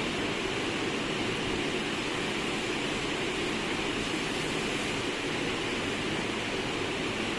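Steady, even background noise with no distinct clicks or tones.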